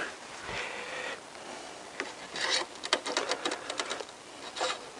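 A cloth rag rubbing along a metal engine-oil dipstick, then the thin dipstick ticking and scraping as it is fed back down its guide tube, with a quick run of light clicks.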